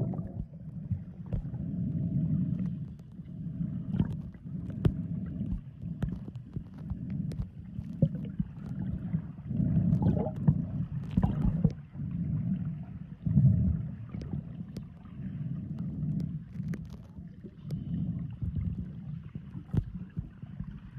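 Muffled low rumble and sloshing of water moving around a camera held just under the sea surface, swelling and fading, with scattered small clicks and knocks.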